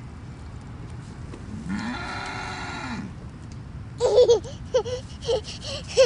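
A cow moos once, one long call of about a second and a half that rises and then falls in pitch. From about four seconds in, a toddler squeals and babbles excitedly.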